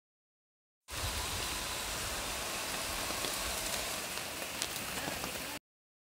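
Rain falling steadily on forest leaves, with scattered sharper drop ticks and a low rumble underneath. It starts abruptly about a second in and cuts off suddenly near the end.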